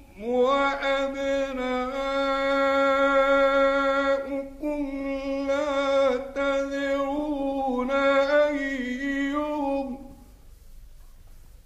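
Male Quran reciter chanting in the ornate mujawwad style: long, held, melismatic tones with a wavering, ornamented pitch, broken by brief pauses for breath, until the phrase ends about ten seconds in.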